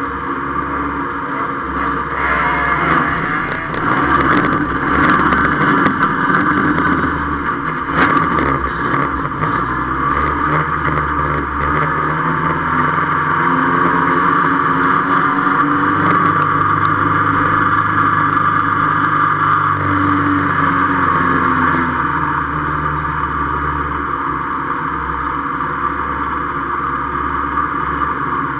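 1300-class oval stock car's engine running hard, heard from inside the stripped, caged cabin with the shell rattling around it. There are several sharp knocks and clatters in the first eight seconds or so, and the sound settles lower over the last few seconds as the car comes to a stop.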